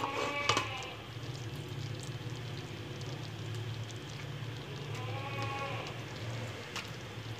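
A metal spoon stirring thick firni in a steel pot, with a few light clicks against the pot, over a steady low hum. A faint, distant, drawn-out call comes about five seconds in.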